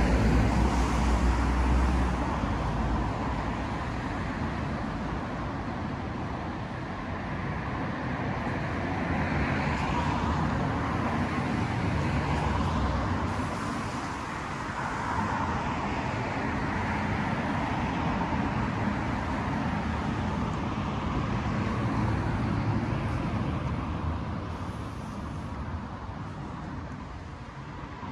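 Road traffic: cars passing in a steady wash of engine and tyre noise that swells and eases, with a deep rumble in the first couple of seconds.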